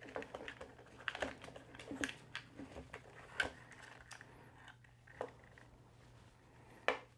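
Irregular small plastic clicks and rattles as a zip tie is threaded through the DJI Neo drone's rear prop vents and worked around the RC car body. The clicks are thickest in the first few seconds, with a sharper one near the end.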